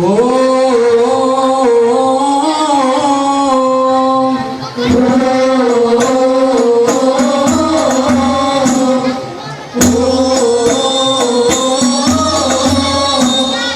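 Banjari sholawat singing: voices hold long drawn-out notes in three phrases, each breaking off briefly before the next. From about a third of the way in, rebana frame drums strike beneath the singing.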